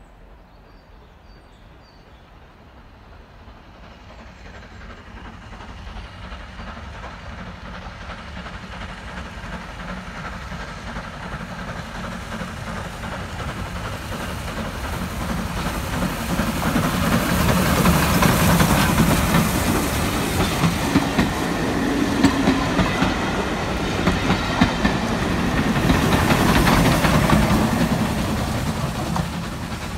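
Steam locomotive hauling a passenger train approaches and passes close by, growing steadily louder. Its wheels click over the rail joints as it goes past.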